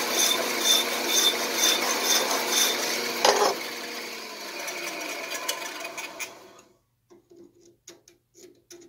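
A hand file rasping against a threaded 1/8-inch pipe spinning in the chuck of a Packard Precision 12-speed drill press, strokes about twice a second over the steady hum of the drill press motor, turning the pipe down to size. A knock a little over three seconds in, then the drill press winds down and stops about six and a half seconds in, leaving faint clicks.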